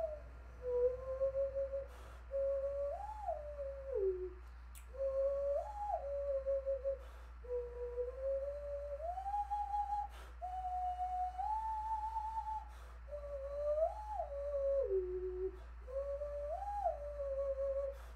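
Hand whistle: air blown into cupped hands gives a single pure, flute-like tone. It plays a slow melody that steps and slides between a few notes, each held for a second or two.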